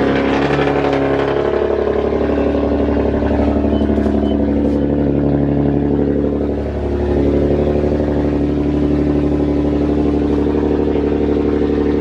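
Infiniti G37's 3.7-litre V6 idling steadily right after being jump-started on a dead battery, its idle note shifting slightly a couple of times.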